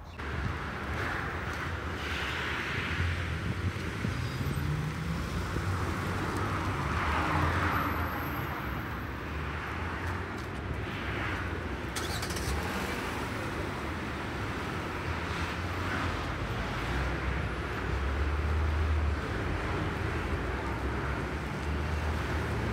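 Steady city street noise: road traffic running in the background, with a low rumble throughout.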